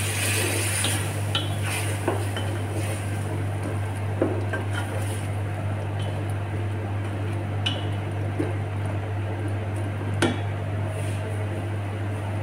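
Wooden spoon stirring chopped bottle gourd and vegetables in a cooking pot: soft squishing with a handful of sharp knocks of the spoon against the pot, the sharpest about ten seconds in. A steady low hum runs underneath.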